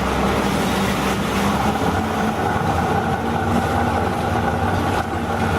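Yamaha VX Sport jet ski running under way at a steady, fairly high throttle, its engine note holding nearly level, over a loud rush of water and wind.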